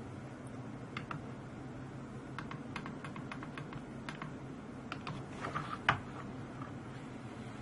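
A series of light, irregular clicks and taps, like small buttons being pressed, over a steady low hum; the loudest click comes just before six seconds in.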